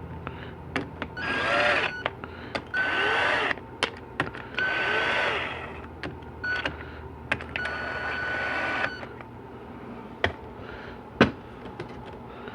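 Handheld power tool running down the bolts on a 4L80E transmission pump, in about four short runs of a second or so. Each run has a motor whine that rises and falls in pitch, and there are sharp clicks between the runs.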